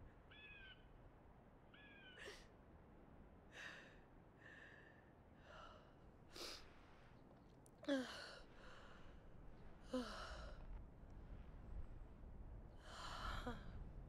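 A girl crying quietly: short whimpers and shaky, sighing breaths, with sobs that fall in pitch about eight and ten seconds in and again near the end.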